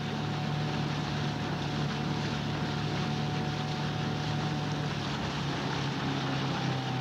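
Outboard motor of a rowing coach's launch running at a steady speed, with a rush of wind and water noise over it.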